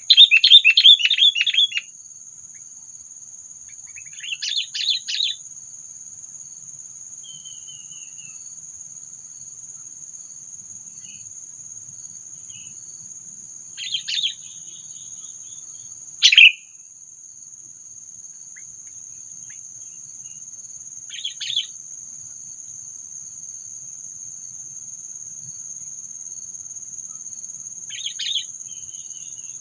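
Sooty-headed bulbuls calling in short chattering bursts, loud and fast for the first two seconds, then a handful of brief bursts and one sharp loud note near the middle. A steady high insect drone runs underneath.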